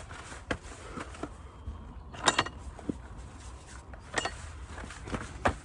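Hands working damp fish-meal groundbait in a bucket: scattered soft rustles and knocks at irregular intervals, the loudest about two seconds in.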